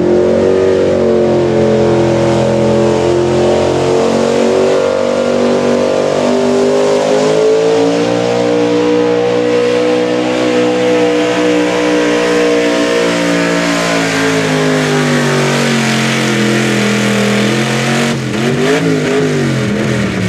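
Pickup truck engine run at full throttle while dragging a weight-transfer sled. Its note holds high and steady, then sinks over the last several seconds as the load builds, with a few quick wavering revs near the end.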